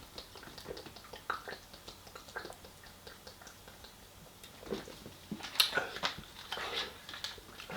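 Close-up chewing and crunching of fried food, a scatter of small crackles with a few louder crunches about five to seven seconds in.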